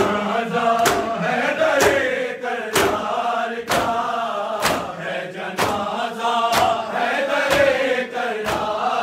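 Male voices chanting an Urdu noha (Shia lament) in unison, with a sharp slap of matam chest-beating in time about once a second.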